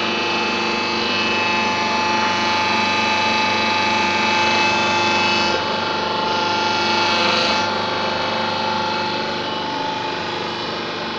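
Hydraulic manipulator crane running: a steady machine drone with a high whine over it, the tone shifting a little about halfway through.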